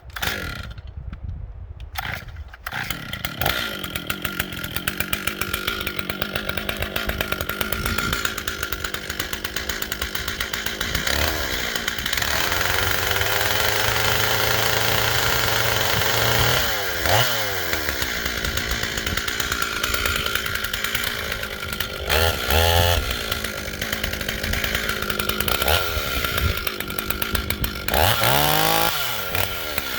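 Stihl 044 two-stroke chainsaw, freshly rebuilt, pull-started and catching about three seconds in, then running up to full throttle and cutting rounds off a grand fir log. Its revs dip and climb back several times in the second half.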